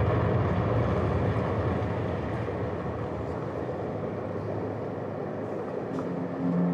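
A loud rushing rumble from the projection show's soundtrack. It starts suddenly and slowly fades over several seconds as the projected stone turns to water.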